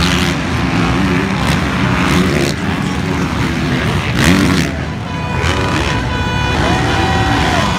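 Several motocross dirt bike engines revving hard as the bikes race past, the pitch rising and falling with each throttle change.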